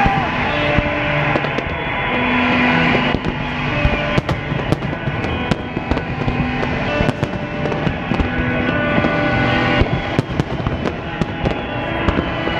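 Fireworks going off in quick succession, many sharp bangs and crackles one after another.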